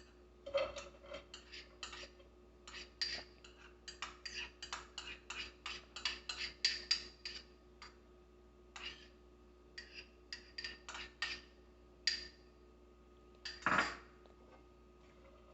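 Spatula clicking and scraping against a wok in quick, irregular strokes while garlic and onion are stir-fried over low heat, with one louder clatter near the end.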